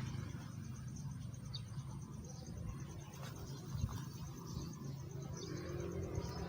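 Insect trilling steadily in a fast, even pulse, with a few short high chirps and a low hum underneath.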